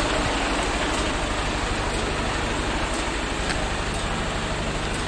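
Steady low drone of an idling diesel truck engine, with a constant rumbling hiss.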